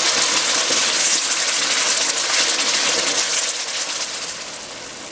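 Blended vegetable purée sizzling in hot oil in a pot: a loud, even hiss that dies down over the last second or so.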